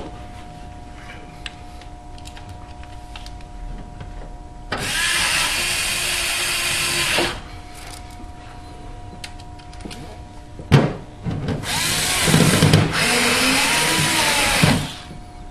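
Power drill driving screws in two runs of about two and a half and three seconds, with a sharp knock between them. A steady faint hum lies underneath.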